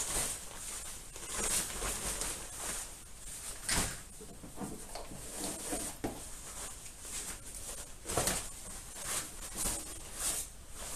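Waterproof jacket and overtrousers rustling as they are shaken out and handled, in a string of irregular swishes.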